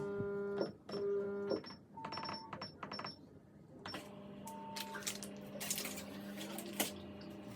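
Top-load automatic washing machine at the end of its spin: its steady motor hum cuts off about a second and a half in, followed by a run of short high electronic beeps. Scattered clicks and knocks follow.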